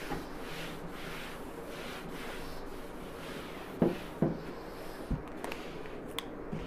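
Whiteboard duster being rubbed across a whiteboard in rhythmic back-and-forth strokes, about two a second. It is followed by a few short knocks in the second half.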